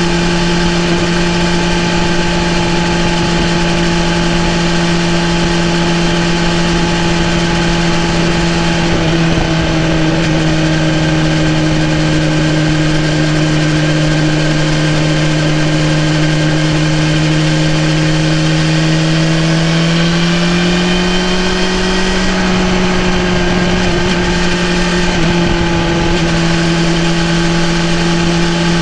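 BMW S1000RR's inline-four engine running at a steady cruise, its pitch dipping slightly about nine seconds in and rising again around twenty seconds. It sits over a constant rush of noise.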